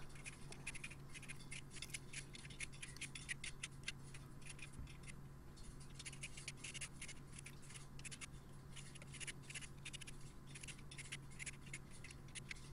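Vegetable peeler scraping the skin off a raw sweet potato: faint, quick runs of short scraping strokes with brief pauses, over a steady low hum.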